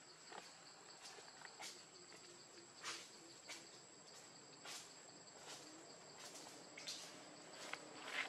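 Faint, steady, high-pitched insect drone, with soft clicks about once a second.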